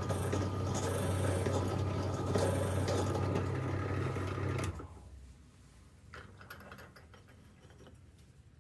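An electric woodworking power tool running steadily with a low hum as it works a wooden board, then stopping abruptly about five seconds in, after which only a few faint clicks of handling remain.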